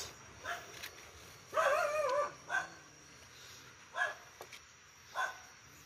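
A dog barking a few times at a distance, with one longer wavering yelp about one and a half seconds in. A faint steady high-pitched tone runs underneath.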